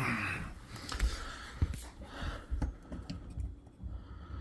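A person breathing hard in short hissy breaths while climbing up onto a vehicle's tire, with a few light knocks and rustling between breaths.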